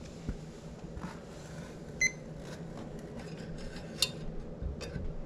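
Steady hum of a 2012 Bryant Legacy Line gas furnace's blower pushing heated air through a vent. One short electronic beep comes about two seconds in, and there are a few light handling clicks.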